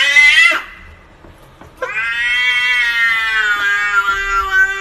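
Domestic cat meowing: a call rising in pitch cuts off about half a second in, then a long, drawn-out meow begins about two seconds in and holds a fairly steady pitch.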